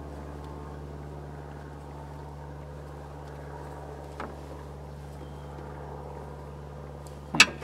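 A steady low mechanical hum throughout, with a small click about four seconds in and a sharp metallic clank near the end as metal tools or parts are handled.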